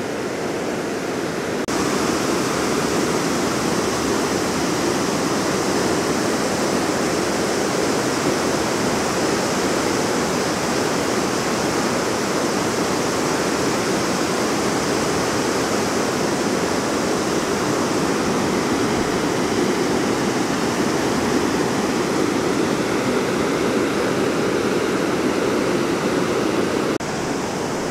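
Spring meltwater rushing through six open dam gates and spilling over the dam as whitewater, a steady, loud rush. It gets a little louder about two seconds in and dips slightly near the end.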